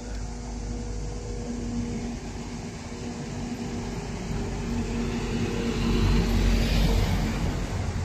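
Motor vehicle engine running with a steady hum, then the sound swells to its loudest about six to seven seconds in and eases off, as of a car passing on the street.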